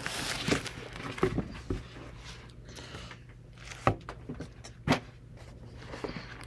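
Paper Bible pages being leafed through, with irregular rustling and two sharper page flicks or taps about four and five seconds in, over a faint steady low hum.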